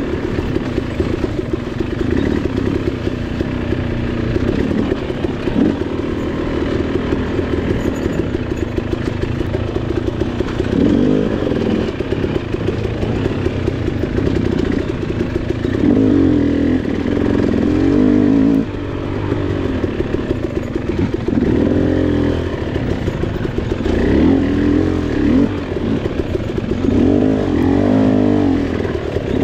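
KTM 300 XC two-stroke dirt bike engine being ridden under constantly changing throttle, its pitch rising and falling again and again, with the swoops coming closer together in the second half.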